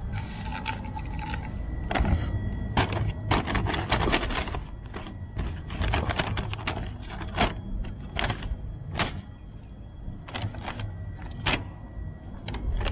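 Plastic bags crinkling and crackling in sharp, irregular bursts: a white plastic shopping bag and the black plastic charcoal sack inside it, handled and slit open with a knife. Under it runs a steady low rumble.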